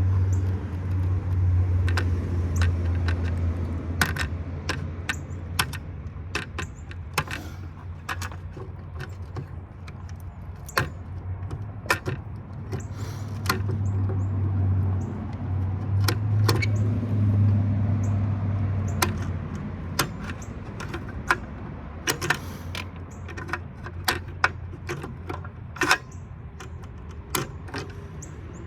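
Hand tools clinking and tapping against the metal parts of a large power supply as its wires are unhooked, a string of irregular sharp clicks. Under them runs a low hum that swells at the start and again in the middle.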